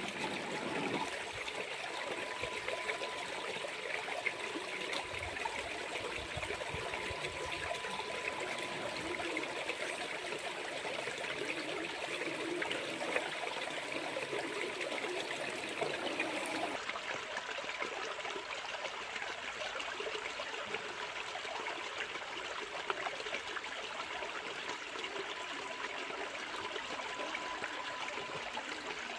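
Shallow stream running over rocks, a steady rushing and trickling of water.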